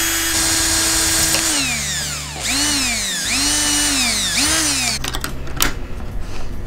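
Electric drill with a 1/8-inch bit drilling a hole through a butter knife blade. The motor runs steady, then slows and speeds up three times as the trigger is eased and squeezed. About five seconds in it stops, and small metal clicks follow as a split ring is worked onto the knife with split-ring pliers.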